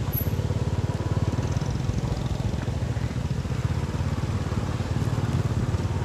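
Motorcycle engine running steadily with a fast, even putter, heard from the rider's seat.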